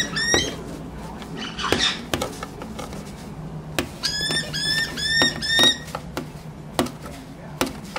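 Caique chirping: short, clear, slightly rising squeaky chirps, a couple right at the start and a quick run of about six midway, with scattered light taps and clicks between them.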